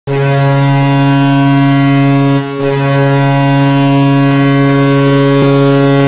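Toronto Maple Leafs goal horn blasting: a loud, steady, low horn note that breaks off briefly about two and a half seconds in, then sounds again.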